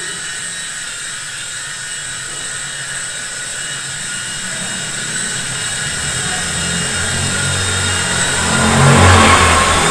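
Small toy RC helicopter's electric motors and rotors whirring in flight, a steady high whine that grows louder; a deeper rotor flutter joins about seven seconds in and peaks near the end.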